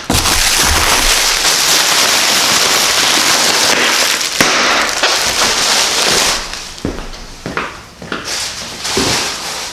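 Cardboard packing being pulled and rustled out of a shipping box, a dense crackling scrape for about six seconds, then a few separate knocks and rustles.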